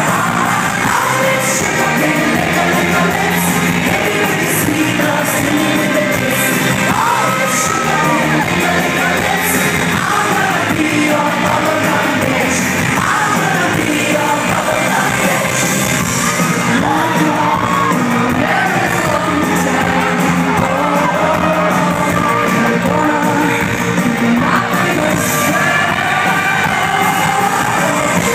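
Live pop band playing loud, with a woman singing lead over guitars and keyboards, picked up from within the concert crowd.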